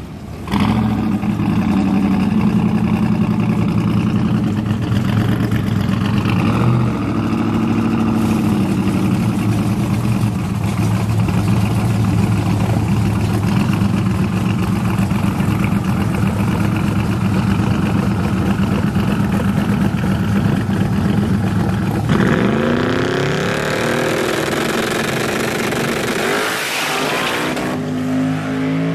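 Turbocharged square-body Chevrolet Silverado pickup engine idling, with a brief rise in revs about five seconds in. About 22 seconds in it launches hard: the engine note climbs quickly, then fades as the truck pulls away down the strip. Near the end another engine note comes in close by.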